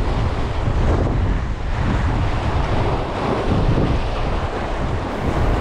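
Wind buffeting the microphone over the sound of waves breaking, a steady, dense rush of noise with no distinct events.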